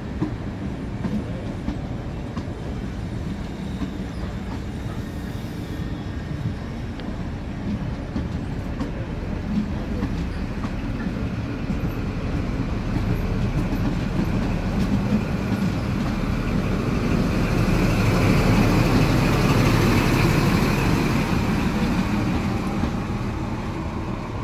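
An XPT diesel passenger train passing at close range, its wheels clicking over the rail joints. The sound builds to a peak about three-quarters of the way through as the rear diesel power car goes by, then fades as the train draws away.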